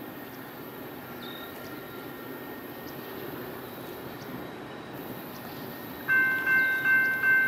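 Approaching diesel freight train: a low, steady rumble. About six seconds in, a bell starts ringing quickly, about two strokes a second, much louder than the rumble.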